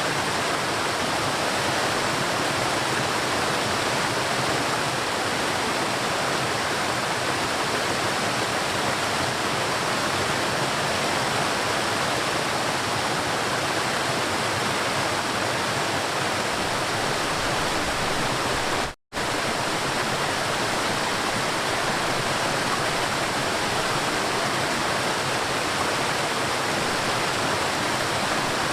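River water rushing and flowing steadily, a dense, even wash of water noise. It cuts out briefly for a fraction of a second about two-thirds of the way through, then carries on unchanged.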